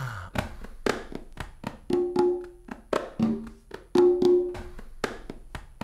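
A pair of conga drums played with bare hands: sharp slaps and short ringing open tones in a repeating rhythmic pattern.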